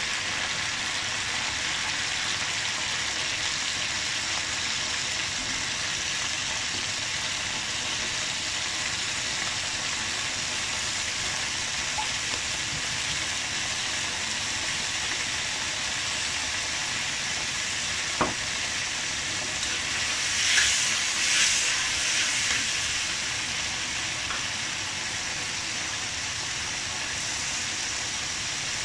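Chopped aromatics sizzling in hot oil in a wok: a steady frying hiss. One sharp click sounds about two-thirds of the way in, followed a couple of seconds later by a few louder bursts of hiss.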